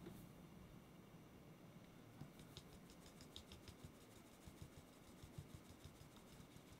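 Fine-mesh metal sieve being shaken to sift cake flour into a bowl, giving a quick run of faint, light ticks several times a second that starts about two seconds in.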